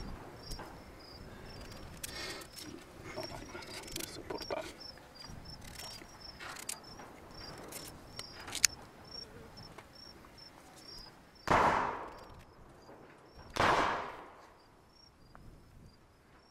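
An insect chirping steadily at a high pitch, a few short chirps a second, over light rustling and clicks. About eleven and a half seconds in come two loud sudden noises, two seconds apart.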